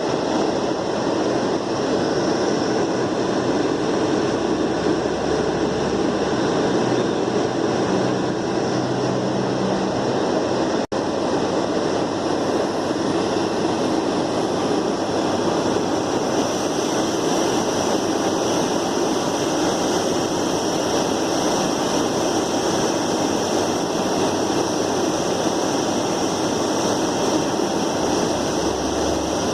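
Steady rushing noise of blowing air, with a momentary dropout about eleven seconds in.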